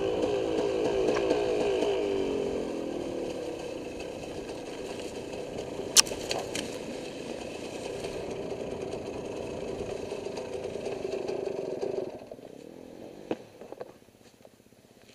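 Dirt bike engine heard from the rider's helmet, revs dropping as the bike slows, then running low and steady before it is switched off about twelve seconds in as the bike is parked. A single sharp crack comes about halfway through, and a few small clicks follow the engine stopping.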